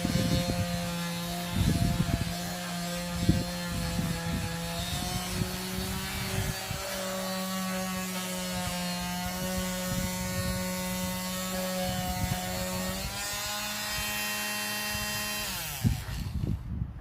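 Electric sander running with its sandpaper rubbing on wood, a steady motor hum over a scratchy rasp. About 16 seconds in it is switched off and winds down in pitch to a stop.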